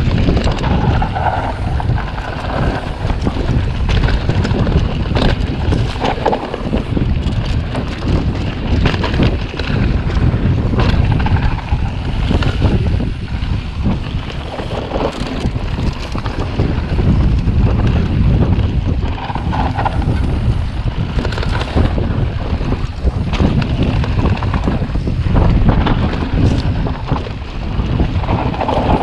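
Wind rushing over the microphone of a mountain bike's action camera on a fast descent. Under it are the tyres rolling on a dirt trail and frequent clicks and rattles from the bike jolting over bumps.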